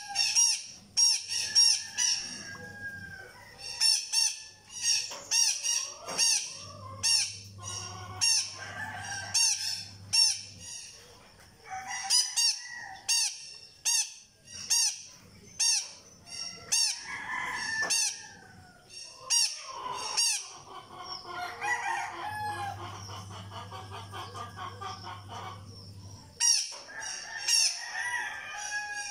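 Blue-crowned hanging parrot (serindit) calling: a rapid series of short, sharp, high-pitched chirps repeated throughout. Longer, lower calls from another bird come in underneath about twenty seconds in.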